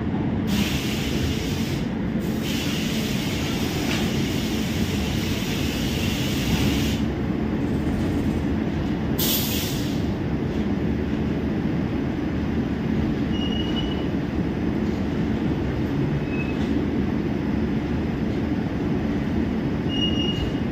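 Steady low drone of a standing WAP-5 electric locomotive's running machinery, with loud hissing in the first half and a few short high squeaks near the end.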